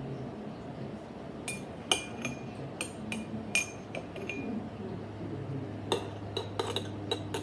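A utensil clinking and tapping against a mixing bowl as slime activator is added to glue, in scattered light knocks that come more closely together near the end.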